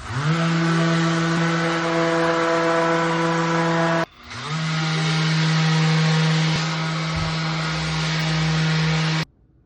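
Electric power tool motor running at full speed in two runs, each spinning up quickly to a steady high whine and breaking off sharply.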